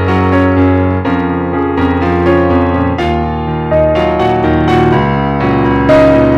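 Piano music: chords under a melody line, with a new note or chord roughly every half second.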